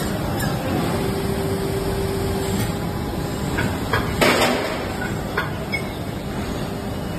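Plastic injection moulding machine running with a steady mechanical hum as its pipe-fitting mould cycles. About four seconds in there is a short loud clatter as the moulded plastic fittings are ejected and drop, with a few lighter clicks around it.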